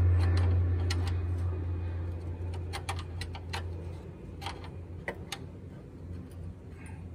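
Low drone of a crop-duster airplane's engine, fading away over the first few seconds, with scattered light metallic ticks of a wrench on a line fitting at the radiator.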